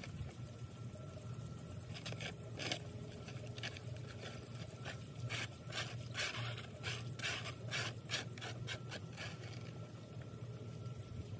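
Gloved hands scooping and scraping wet leaves and mud out of a clogged roadside drain in shallow floodwater: a run of splashes and scrapes starting about two seconds in, thickest in the middle, stopping near the end. A faint steady low hum lies underneath.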